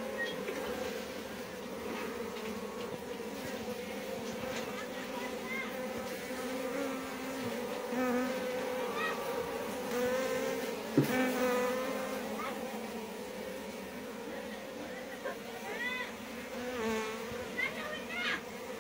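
A dense cluster of honeybees buzzing in a steady hum, with one sharp knock about halfway through.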